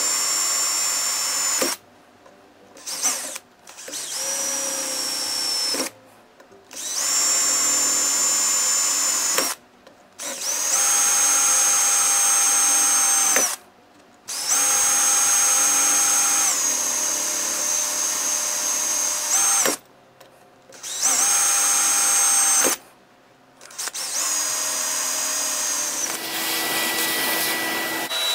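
Handheld electric drill boring holes into a metal lock body. It runs in about eight bursts of one to five seconds each, with short pauses between them, and holds a steady high whine within each burst.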